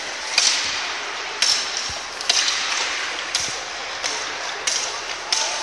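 Hockey sticks and pucks clacking on the ice and boards of an echoing ice rink: about seven sharp cracks roughly a second apart, over a steady hiss of skates on the ice.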